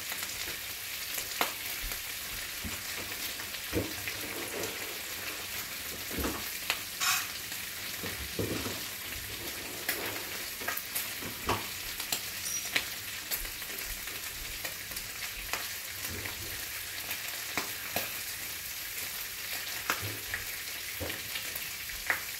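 Thick-cut bacon frying in a skillet: a steady hiss of sizzling fat with irregular pops and crackles.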